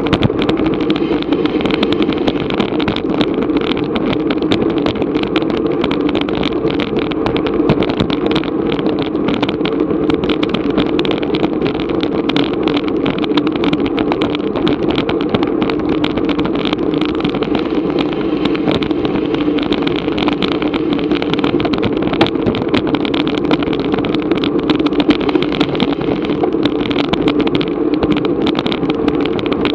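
Steady wind rush and road rumble on a bicycle-mounted action camera's microphone while riding at race speed, sprinkled with small rattles and ticks.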